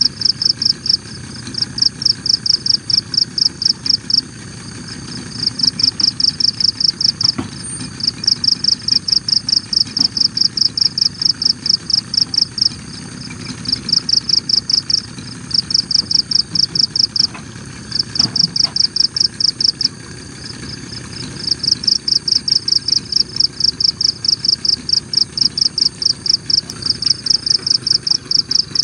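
An insect calling in trains of fast, high-pitched pulses, about five a second, each train lasting several seconds with short breaks between. Under it runs a steady low rush of noise.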